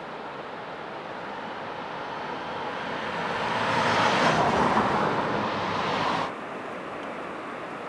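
A vehicle crossing the bridge: tyre and road noise swells over several seconds, then cuts off suddenly about six seconds in, leaving a steady hiss.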